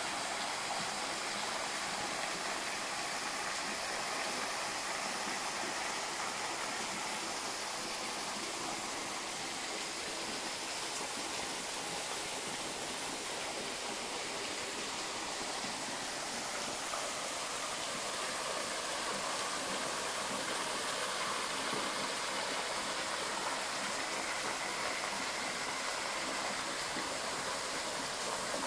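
Mountain river rushing steadily, an even hiss with little deep rumble.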